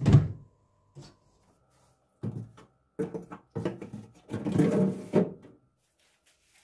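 Refrigerator drawers and shelves being handled and slid in and out, in several separate bursts of sliding and knocking, the longest in the second half.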